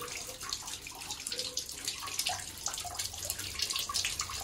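Tap water running through a bunch of water balloons on a multi-balloon filler and spilling into a plastic bucket of water below, with irregular splashes and drips.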